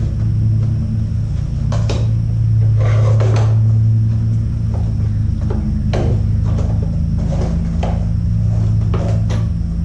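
Hard plastic parts of a Dyson upright vacuum's brush bar and housing clicking and knocking as the brush bar is handled and fitted back in place, a dozen or so short knocks spread through, over a steady low hum.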